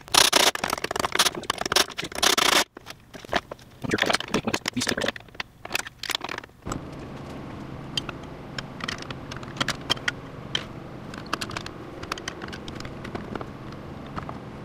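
Steel engine-mount plates scraping and clinking against the engine and chassis as they are shifted into place by hand, loudest in the first few seconds. After that a shop fan hums steadily under a few light metal taps.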